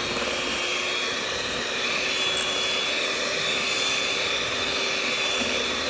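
Electric mixer running at a steady speed, beating cheesecake batter in a steel bowl: an even motor whine over a whirring hum that cuts off abruptly at the end.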